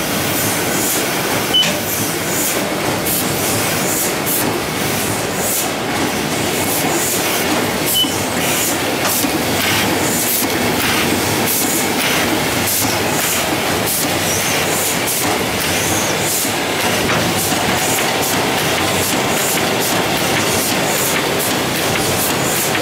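Sheet-fed offset printing press running steadily, a constant mechanical din with sharp regular ticks about twice a second as the feeder takes in sheets, here coating printed sheets with varnish.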